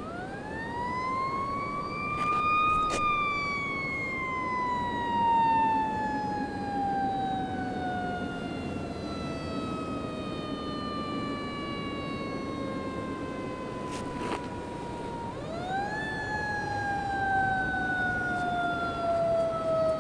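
A siren winds up to a high pitch over about three seconds, then slowly falls in pitch, and winds up again about fifteen seconds in. Underneath it is the steady rush of the flood-swollen Winooski River.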